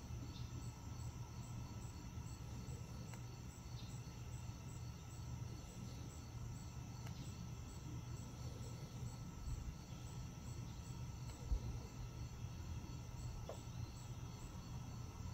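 Crickets chirping steadily, with high, even, repeating notes over a low steady rumble. A single short low thump comes about eleven and a half seconds in.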